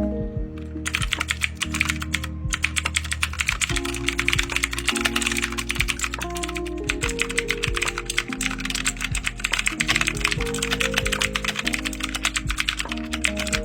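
Fast, continuous typing on a mechanical keyboard with clicky blue switches, starting about a second in with a brief pause near two and a half seconds.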